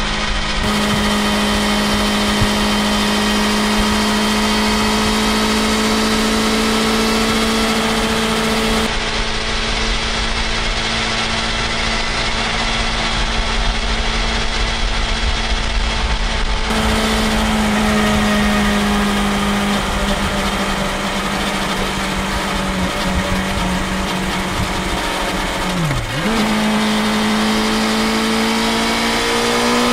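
BMW S1000XR's inline-four engine and exhaust running steadily at highway cruising speed, a held drone with a low rush of wind underneath. About 26 seconds in, the engine note dips sharply for a moment and then holds again, and in the last seconds the bike is inside a road tunnel.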